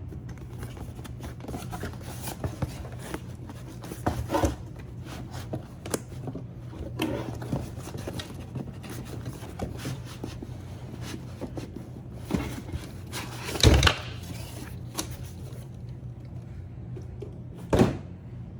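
Cardboard box being opened and its packed contents handled: scattered rustling, scraping and small knocks, with two louder thuds, one about two-thirds of the way through and one near the end, over a steady low hum.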